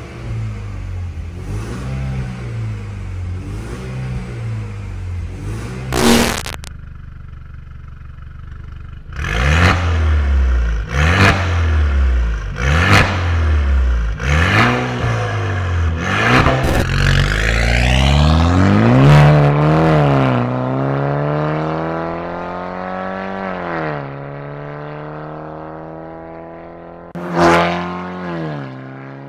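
VinFast Lux A2.0's 2.0-litre turbocharged four-cylinder revved through an aftermarket RES valved exhaust. It starts with repeated revs heard from inside the cabin with the exhaust valve closed, followed by a sharp crack. Then come a string of quick, sharp blips at the quad tailpipes, and finally a long rising and falling pull as the car accelerates away, with another crack near the end.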